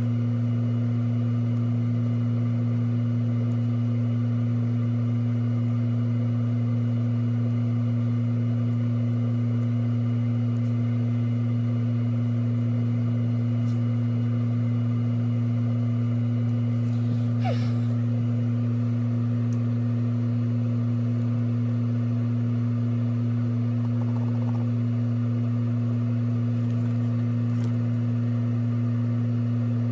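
Steady low hum that holds one level and pitch throughout, with a short faint noise about seventeen seconds in.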